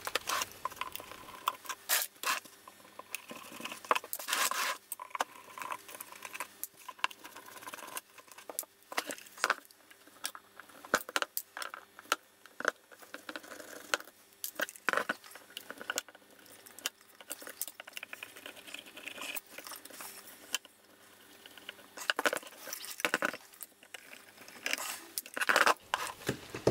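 Irregular small clicks, scrapes and light metallic rattles of hands working small screws and metal parts of a satellite instrument during disassembly.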